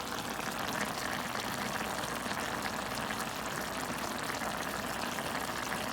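Chicken adobo cooking in a pan, a steady bubbling sizzle of the sauce as it nears done.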